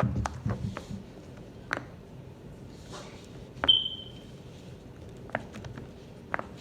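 A few scattered light clicks and taps with no steady rhythm. About three and a half seconds in, one sharper click rings out as a short high ping.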